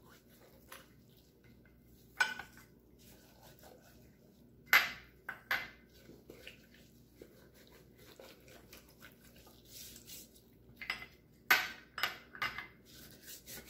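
Gloved hands rubbing salt over a raw whole chicken in a ceramic dish: quiet handling with a few sharp knocks and clinks against the dish, and of the small glass salt bowl near the end.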